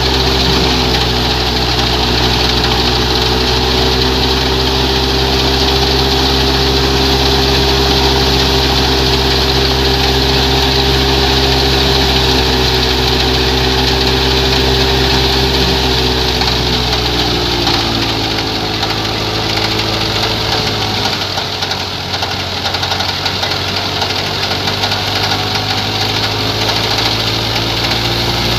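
New Holland Ghazi tractor's diesel engine running steadily under heavy load as it drives a wheat thresher through a belt, together with the thresher's whirring drum and fan. The engine's pitch sags a little about two-thirds of the way through, then picks back up near the end.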